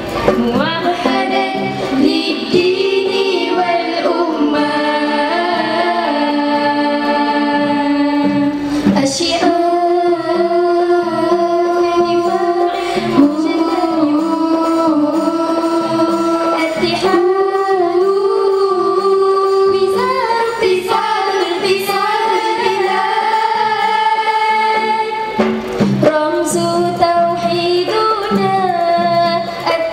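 A girls' nasyid group singing a melodic song together into microphones, with held and gliding notes, over a steady hand-drum beat.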